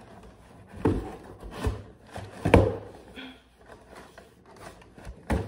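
Long cardboard shipping box being handled and turned over: about four dull knocks of cardboard, the loudest about halfway through, with rubbing and scraping between them.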